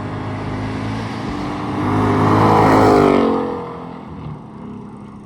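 Ford S650 Mustang GT's Coyote 5.0 V8 with Kooks long-tube headers and an X-pipe accelerating past in a flyby: the exhaust note climbs in pitch and loudness to a peak about three seconds in, then fades as the car moves away.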